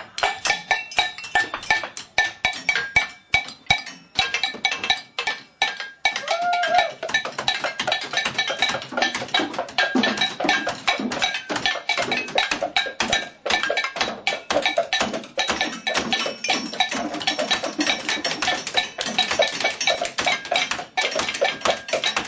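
Improvised rhythmic drumming on kitchen objects: fast, dense strikes, some of them ringing with a metallic tone.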